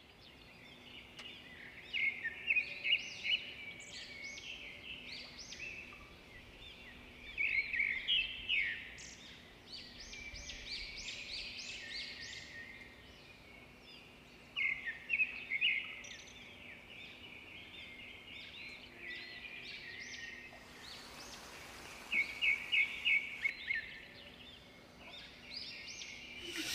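Birds singing in quick runs of chirps and trills, in several bouts with quieter gaps between. About three-quarters of the way through, a steady hiss joins them for a few seconds.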